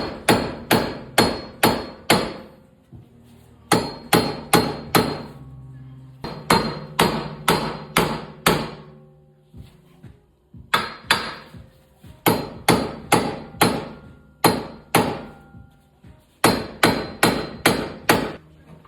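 Hammer blows on steel, striking the rear wheel hub and bearing assembly to break it loose from the knuckle. The blows come in quick bursts of four to six, about three a second, each with a short metallic ring, with brief pauses between bursts.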